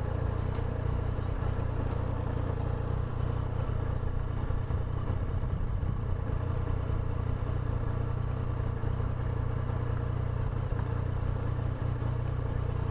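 Yamaha Tracer 900 GT's inline three-cylinder engine running steadily at low speed as the motorcycle rolls along a narrow lane: an even, low drone with a few light clicks and rattles over it.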